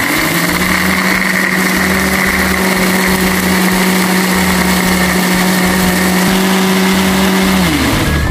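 Electric countertop blender motor running at full speed, grinding chilies, shallots, garlic, candlenuts and coriander seeds into a smooth spice paste. It spins up at once, holds a steady loud hum, and winds down with a falling pitch near the end.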